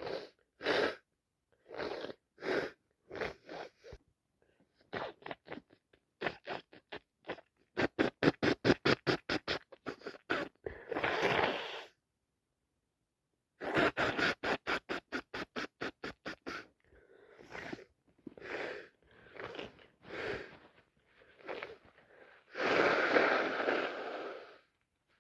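A person with a head cold sniffling and breathing in rapid runs of short sharp sniffs, broken by sneezing: a noisy burst about eleven seconds in and a longer one near the end.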